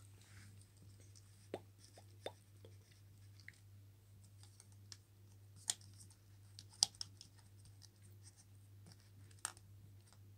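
Small plastic toy figurines clicking and tapping against each other as they are handled, in irregular faint clicks, over a steady low hum.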